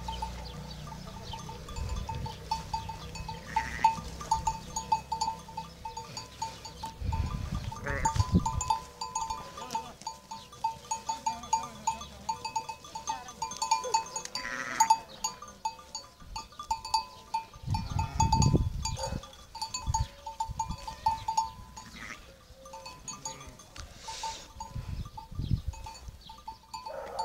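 Small bells on grazing sheep clinking irregularly, many quick ringing strikes at one pitch as the sheep move their heads while feeding. A couple of brief low rumbles come through about a third and two thirds of the way in.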